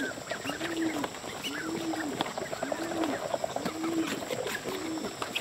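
A bird's low hooting call, rising and falling, repeated five times about once a second, with short higher chirps of other birds among them.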